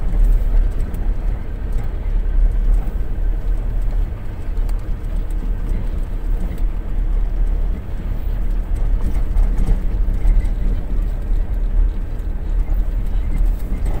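Steady low rumble of a car's engine and tyres on the road, heard from inside the vehicle while it drives along.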